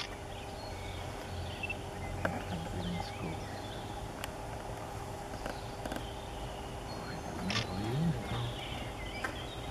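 Steady low background hum with a few faint, short, high bird chirps scattered through it, and a low rising-and-falling call near the end.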